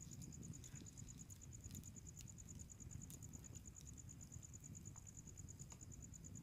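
A night insect trilling steadily: one high, rapidly pulsing note, with faint scattered crackles from the campfire underneath.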